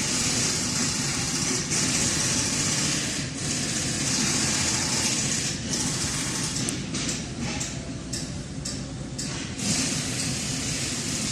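Ford engine running at idle, with a steady hiss over it that breaks up for a few seconds midway; the engine has a misfire fault, logged as a misfire code.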